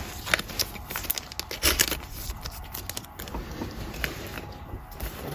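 Trading cards being handled and flipped through: irregular crinkling and rustling with sharp little clicks as the cards slide against each other.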